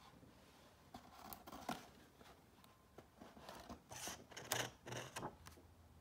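Paper pages of a book being turned: a series of short rustles and flaps, loudest about four and a half seconds in.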